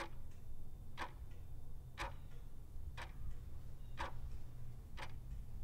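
A clock ticking steadily, one sharp tick a second, each with a fainter click just after it, over a low steady hum.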